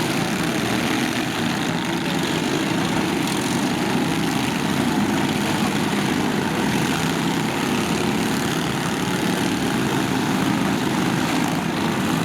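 Lawn tractor engines running steadily together, a constant small-engine drone.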